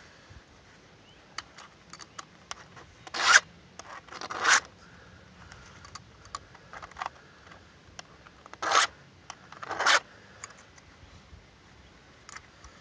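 Flat file rasping across the rakers (depth gauges) of a chainsaw chain: four short strokes in two pairs, with light clicks of metal between them as the chain is moved on.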